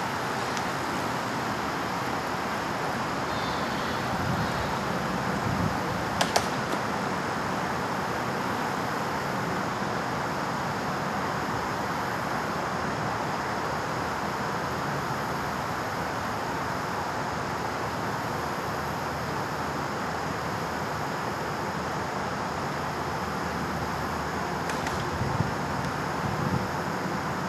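Steady outdoor background noise, with a short click about six seconds in and another near the end.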